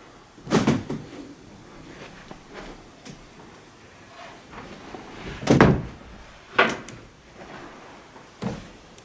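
Doors of a wooden wardrobe being opened and shut: four knocks, the loudest about half a second in and about five and a half seconds in, with smaller ones about a second later and near the end.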